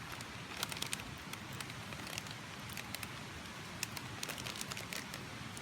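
Wood fire crackling: a rocket stove made of scrap wooden rafters burning, with irregular sharp crackles and pops over a steady hiss.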